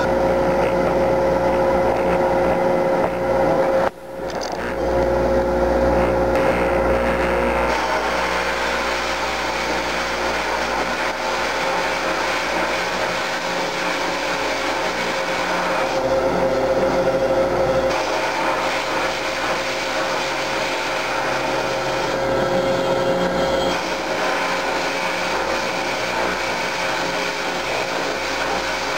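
Haas CNC mill machining a part under flood coolant: a steady whine with the hiss and spatter of coolant spray. The sound drops out sharply for a moment about four seconds in.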